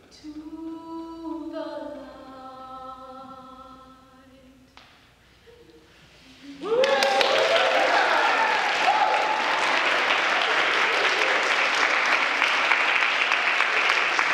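Choir holding a final sung chord that fades away; about two seconds later applause and cheering break out suddenly and keep going loudly.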